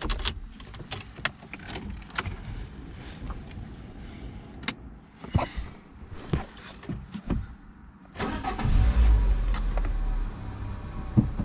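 Lada Largus 16-valve petrol engine started with the key and running at idle, with a louder low hum setting in about eight seconds in. The engine has a low-idle fault that the owner traces to the throttle body.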